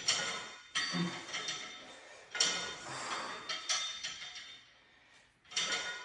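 Cable crossover machine's weight stack and pulleys clinking and rattling through single-arm cable reps, a burst every second or so, each fading out.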